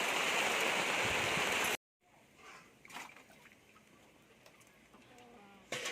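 Batuk frying in hot oil, a steady even sizzle that cuts off abruptly about two seconds in, followed by quiet with a few faint knocks.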